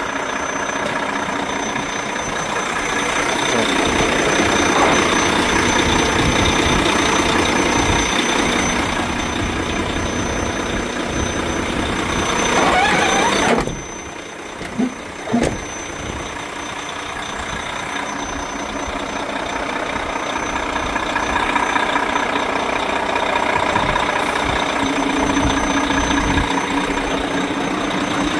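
Volvo FH500 dump truck's D13 inline-six diesel running steadily. About halfway through its sound swells and then drops away sharply, with two short blips just after, before it builds up again.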